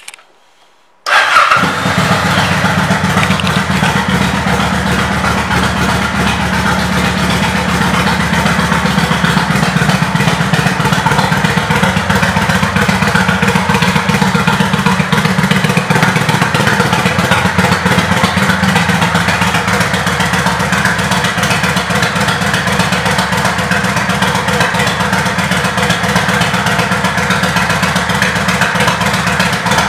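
Kawasaki Vulcan 800's V-twin engine starting about a second in, then idling steadily.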